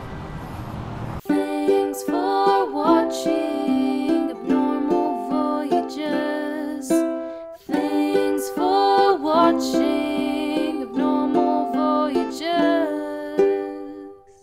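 Background music. A low steady drone in the first second gives way to a bright, rhythmic plucked-string tune, which breaks off briefly around the middle and then carries on.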